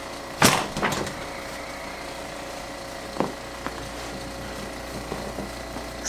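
A chiropractic adjusting table knocking as it is handled: a loud sharp knock about half a second in, a second about half a second later, then a couple of light clicks a little after three seconds, over a steady hum.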